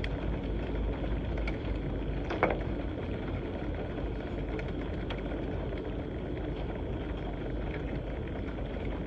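Steady rushing of floodwater and rain pouring through a city street, with one short sharp sound about two and a half seconds in.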